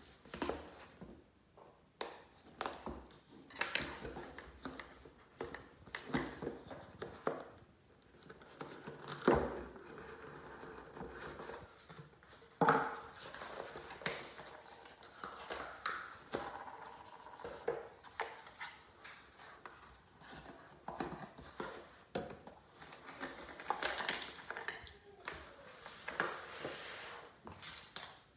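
Cardboard product boxes being handled and opened on a stone countertop: rustling, sliding and scraping of the box, lid and inner tray, with scattered taps and two louder knocks, about nine and twelve seconds in.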